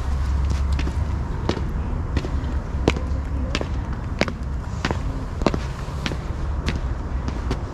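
Footsteps on a hard surface at a walking pace, about one and a half steps a second, over a steady deep rumble.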